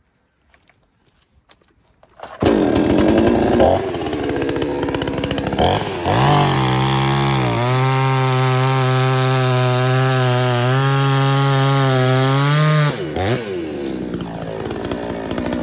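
Makita two-stroke petrol chainsaw starting about two seconds in and revving. It then holds steady at full throttle for about five seconds while cutting through a log without bogging down, and drops back toward idle once through. The cut shows the saw now pulls under load after the repair, no longer stalling in the wood as before.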